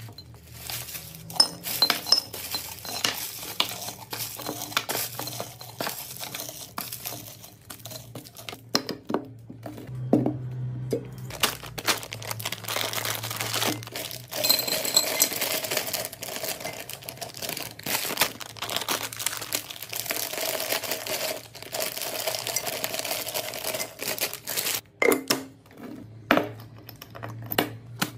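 Wrapped mini chocolate bars and candies poured into a glass jar: a long rattling, crinkling stream of plastic wrappers with many small clicks against the glass.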